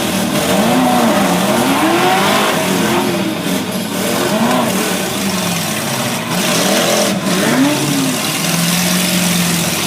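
Demolition derby car engines revving again and again, their pitch rising and falling every second or so over a steady noisy background. Near the end one engine holds a steady pitch.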